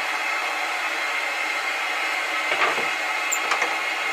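Workshop dust extractor running with a steady rushing noise and a faint steady whine, with a small knock about two and a half seconds in.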